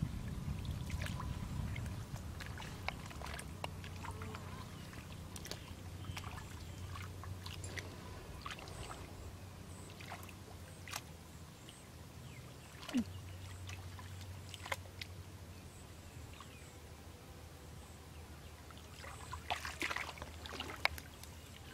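Hands sloshing and splashing in shallow muddy water, with scattered small splashes and clicks and a cluster of louder splashes near the end, over a low steady hum.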